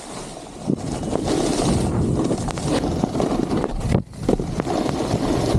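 Snowboard sliding and scraping over snow, with wind buffeting the microphone. The sound drops out briefly about four seconds in.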